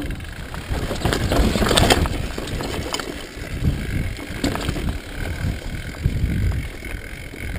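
Mountain bike rolling down a dry dirt trail: tyres rumbling over loose gravel and the bike rattling over bumps, with wind buffeting the microphone. The clatter is loudest about a second or two in.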